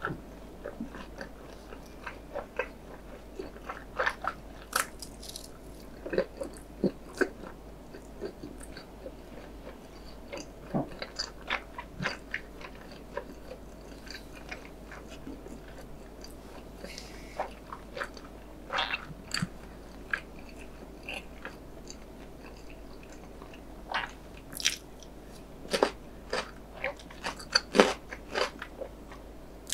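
Close-miked mouth sounds of a person chewing a bite of breaded hot dog: irregular crunches and wet clicks that come in clusters, busiest near the end.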